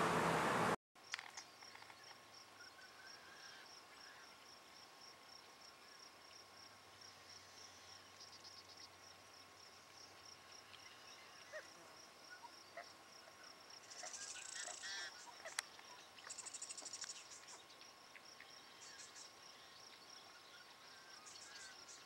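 A quiet marsh chorus under yellow-headed blackbirds: a steady high-pitched pulsing trill runs throughout, with scattered short chips and two harsh, buzzy blackbird calls past the middle. It opens with a loud rush of noise that cuts off suddenly less than a second in.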